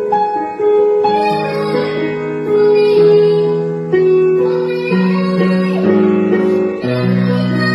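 A young girl singing with an instrumental accompaniment of held chords that change about once a second.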